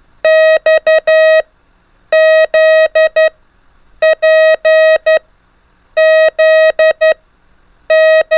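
Morse code practice tone, a steady mid-pitched beep keyed in long and short elements, sending single letters in groups about every two seconds: X, Z, P and Z, with another P starting near the end.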